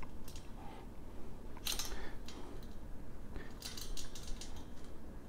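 Small thin kit wrench turning a nut on a chrome-plated metal dish rack frame: a few faint, scattered metal clicks and scrapes as the wrench works the nut.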